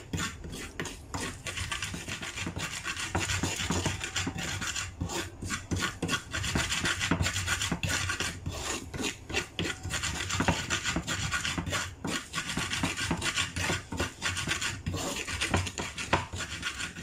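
Wooden pestle grinding spice paste in an unglazed clay mortar: continuous rhythmic rasping and scraping strokes of wood on clay.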